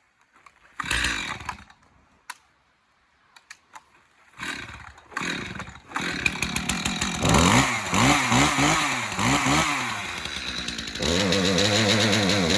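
Cold two-stroke chainsaw being started: a short burst about a second in, then the engine catches about four seconds in and surges up and down unevenly for several seconds before holding a steady fast run near the end. It is running rough while cold, which the owner thinks means it just needs to warm up.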